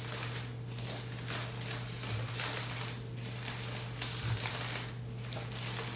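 Plastic poly bag rustling and crinkling in irregular strokes as a folded T-shirt is slid into it, over a steady low hum.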